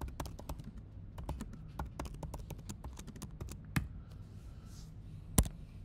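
Typing on a computer keyboard: a quick, uneven run of keystrokes for nearly four seconds, then one louder click about five and a half seconds in.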